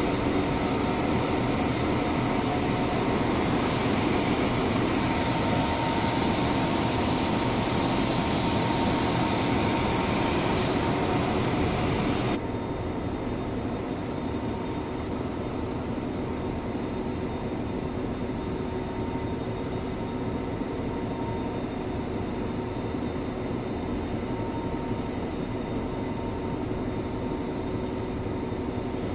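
Steady drone of idling Irish Rail InterCity diesel railcars: an even hum with a few steady tones running through it. About twelve seconds in the level drops suddenly, and the quieter hum carries on.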